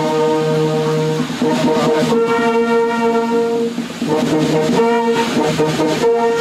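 Brass band playing slow, held chords that change every second or two.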